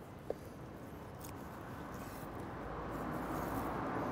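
A knife slicing through raw pork shoulder on a wooden cutting board: a quiet steady hiss that swells a little toward the end, with one soft tap near the start.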